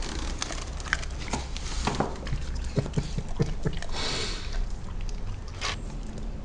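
Basset hound chewing a piece of ginger: irregular mouth clicks and smacks, quickest in a run near the middle, with a short hiss about four seconds in, as she works the food and licks her lips.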